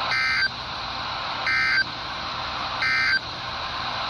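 EAS end-of-message data bursts from NOAA Weather Radio station WXL56: three short, harsh digital buzzes about 1.4 s apart, played through a RadioShack 12-254 weather radio's speaker over steady static hiss. They mark the end of the alert message.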